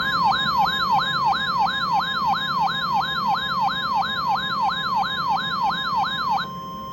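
RadioShack 12-519 weather radio's alarm siren, a falling sweep repeated about three times a second, over the steady NOAA Weather Radio alert tone that signals an incoming warning. The siren stops shortly before the end, leaving the steady tone alone.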